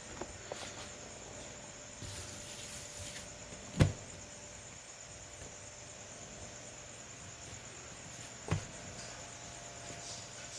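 Steady high trilling of crickets in the background, with two sharp knocks, about 4 seconds and 8.5 seconds in.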